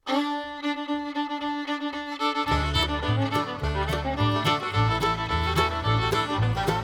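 Instrumental outro music starting abruptly, with a deep bass line and beat coming in about two and a half seconds in.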